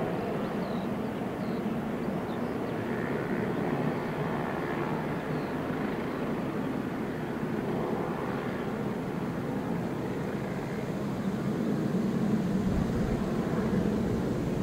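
Boeing E-3A Sentry's four TF33 turbofan engines at takeoff power through the takeoff roll and liftoff, a steady distant jet roar that grows louder near the end as the aircraft climbs out.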